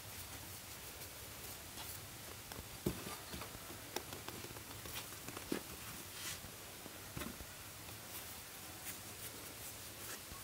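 Scattered light taps and clicks over a faint steady low hum.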